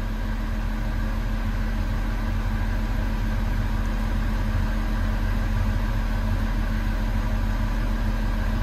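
Develon DX380 excavator's common-rail diesel engine idling steadily.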